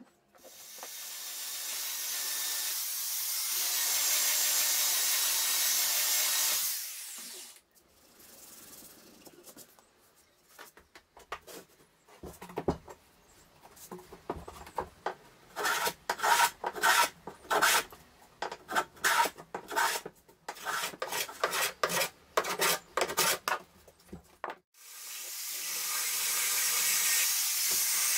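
Oak being sanded by hand with a sanding block: long, steady rubs at the start and end, with a run of short, quick rubbing strokes in between.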